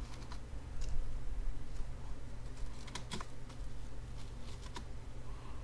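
A few scattered keystrokes on a computer keyboard, separate sharp clicks over a low steady hum.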